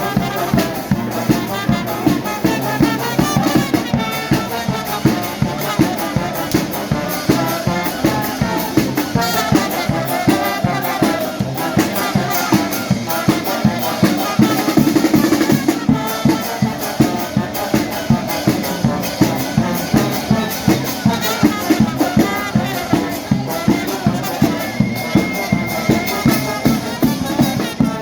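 Charanga brass band playing live: trumpets and other brass over a steady drumbeat with shaken percussion.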